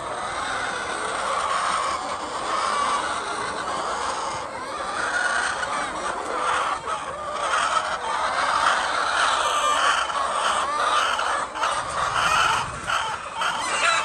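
A large flock of laying hens clucking and calling over one another without pause, a dense steady chatter.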